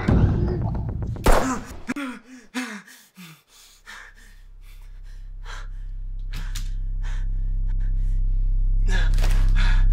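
A woman gasping and whimpering in short, ragged breaths, with a sharp gasp about a second in and a few more breaths later. From about three seconds in, a low drone rises steadily in loudness beneath them.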